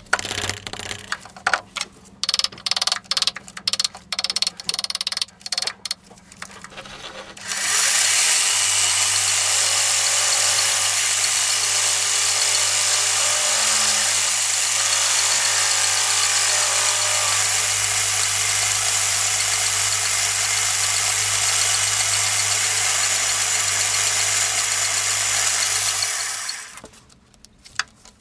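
Irregular clicks and knocks for the first several seconds. Then a metal lathe runs steadily for about 19 seconds, its tool bit turning down the outer diameter of a pattern-welded steel ring held on a mandrel, before stopping near the end.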